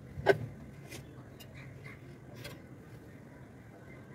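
Steel kitchen utensils clinking: one sharp knock of a steel plate against a steel bowl about a third of a second in, then a few faint clinks and scrapes as a spoon works soaked sabudana and grated potato in the bowl.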